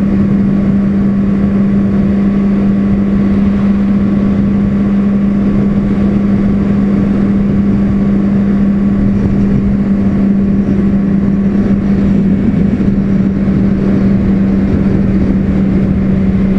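Motorcycle engine running at a steady cruise on the open road, one constant engine note with wind rush over the microphone.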